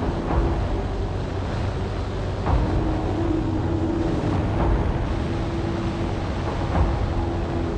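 Motorcycle engine running at a steady speed while riding, with wind rushing over the microphone.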